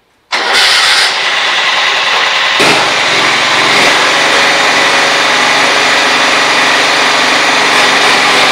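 John Deere 185 Hydro lawn tractor engine starting up and catching almost at once, then running steadily.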